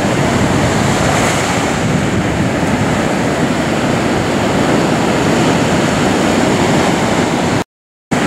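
Ocean surf breaking and washing on the shore, a steady loud rush of noise that cuts out for about half a second near the end.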